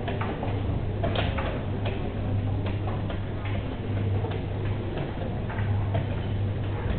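Jean Tinguely's motorized wheel-and-belt kinetic sculpture Requiem pour une feuille morte running: a steady low hum with uneven clicks and knocks from its turning wheels roughly once a second.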